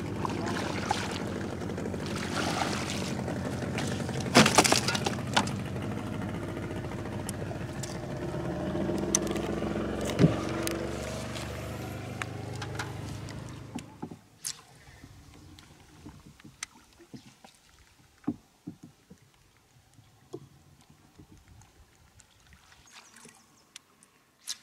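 A boat's outboard motor running steadily, its pitch rising around eight to ten seconds in, with a few sharp knocks over it. The motor cuts off suddenly about fourteen seconds in, leaving quiet with scattered small knocks and taps.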